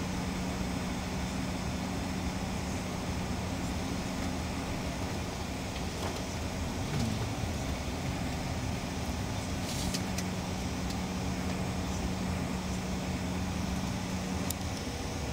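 Cabin noise of a Bombardier CRJ900 taxiing: a steady hum and rumble from its rear-mounted turbofan engines at low taxi power, with a steady low drone.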